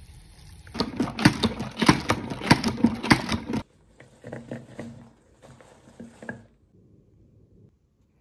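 Chopped romaine lettuce handled in a plastic salad spinner basket under running tap water: a loud, rapid run of rattling and splashing clatter for about three seconds that cuts off abruptly, followed by softer rustling and clatter as the leaves are tipped into a wooden bowl.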